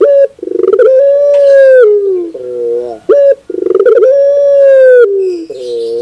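Barbary (ringneck) dove cooing loudly in repeated phrases. Each phrase is a short note, a rolling note, a long held coo, then a falling tail, about two phrases in all.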